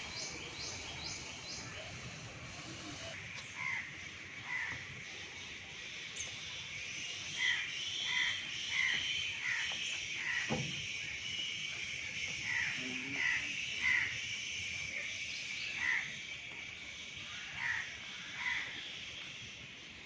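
Crows cawing repeatedly, short falling caws coming singly and in quick runs of three or four, over a steady high hiss of the surrounding forest.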